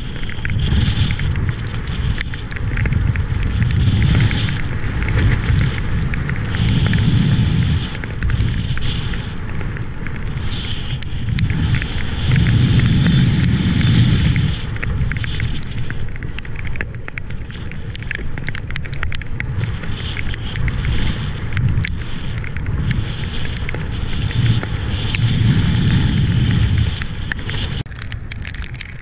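Wind buffeting the action camera's microphone in gusty swells, with water rushing and hissing past, while riding a wing foil; the noise drops somewhat near the end.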